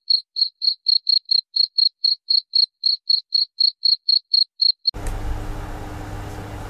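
Cricket-chirping sound effect laid over muted audio: one high chirp repeating about four times a second against dead silence, the comic 'crickets' gag for an awkward pause. It cuts off suddenly about five seconds in, giving way to faint room hum.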